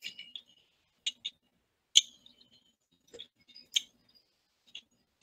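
Computer mouse clicking: a scattered series of about eight sharp clicks at irregular intervals, some in quick pairs, the loudest about two seconds in.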